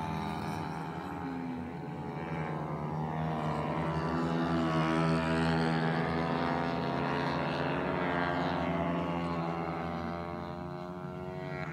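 Several dirt-track racing motorcycles running laps, their engines revving up and down through the turns. The sound swells to its loudest about halfway through as a bike passes close, then fades as it pulls away.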